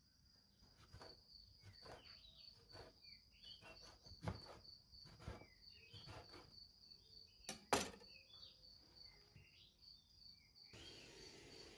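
Faint, irregular knife taps on a cutting board as brinjal (eggplant) is sliced into long pieces, the two loudest strokes about four and eight seconds in.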